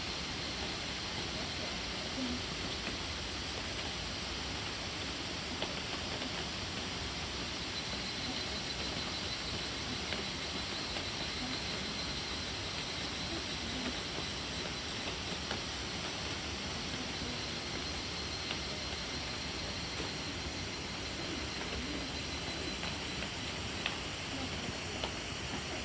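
Steady rain falling on woodland: an even hiss with a few sharper drip ticks now and then, recorded on an iPad's built-in microphone.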